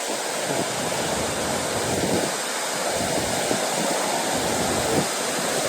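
Waterfall falling into the fjord close at hand: a steady, loud rush of falling water.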